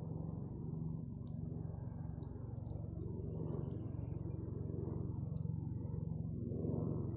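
Insects, crickets or cicadas, trilling steadily at two high pitches over a low, steady rumble.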